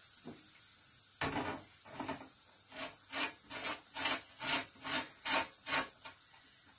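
A lemon wedge being grated for zest on a metal box grater: a run of short scraping strokes, about two a second, starting about a second in.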